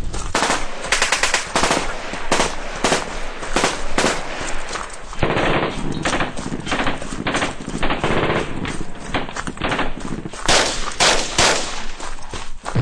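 Machine-gun fire in repeated short bursts of rapid shots, part of a First World War battle sound effect.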